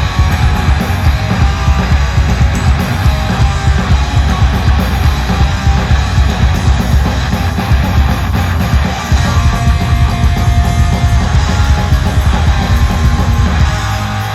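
Live punk rock band playing at full volume: loud electric guitars, bass and drums kicking in together after a count-in.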